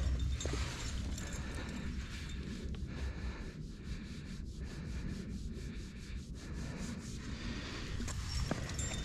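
A climber's hands and rubber-soled shoes rubbing and scraping on rough sandstone while climbing, in a run of short, fairly even scrapes, over a steady low rumble of wind on the microphone.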